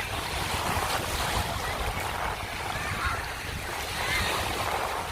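Sea waves washing in the shallows, with wind buffeting the microphone.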